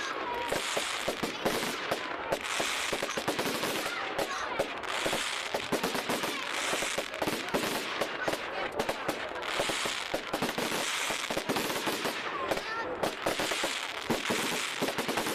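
Firework display crackling: a dense, continuous rattle of rapid small bangs with recurring hissing swells.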